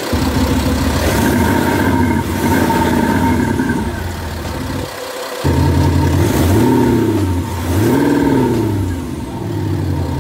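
Thor active sound exhaust system on a 3.0 diesel Range Rover Sport, playing its synthesized fighter-jet engine sound through the exhaust speaker. The pitch rises and falls several times like blips of revs, and the sound cuts out briefly about five seconds in.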